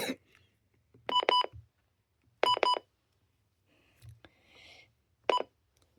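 Short electronic key beeps from a Midland weather radio: a run of three quick beeps, another run of three about a second and a half later, then a single beep near the end. A knock comes at the very start.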